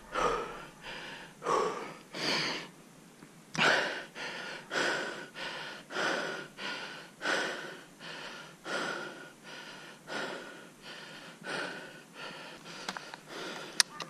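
A person breathing hard and fast, with a loud rush of breath about every half second to second, as from hurrying on foot. Two sharp clicks near the end.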